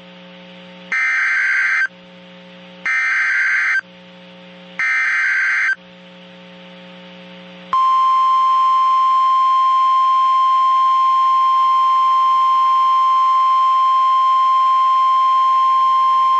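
NOAA Weather Radio EAS alert: three SAME header data bursts, each a harsh screeching burst about a second long and about two seconds apart, then the single steady warning alarm tone, held for about nine seconds. It signals that a warning, here a severe thunderstorm warning, is about to be broadcast.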